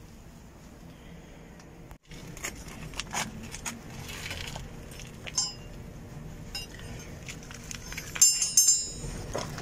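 Irregular metallic clicks and clinks, with a quick rattle of sharp clinks near the end as the loudest part.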